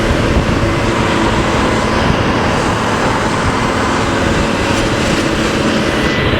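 Intercity diesel bus running hard at speed, its exhaust giving a deep snoring rumble under heavy, steady road and wind noise.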